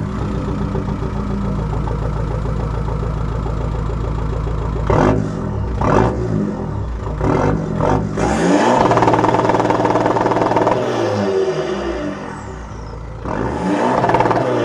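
SEAT Leon Mk2's engine heard at its twin exhaust tips, idling steadily, then revved: three short blips about five, six and seven seconds in, a longer held rev from about eight to eleven seconds, and another rev near the end.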